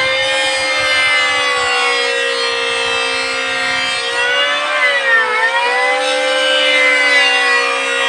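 High, steady whine of an electric woodworking power tool's motor (router or power planer) running. Its pitch sags once about five seconds in and then climbs back.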